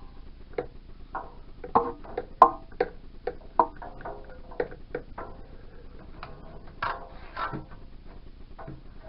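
Plastic garden hose being pushed into a vacuum cleaner's ribbed flexible hose: irregular clicks and short scraping rubs as the two plastic hoses catch and slide against each other.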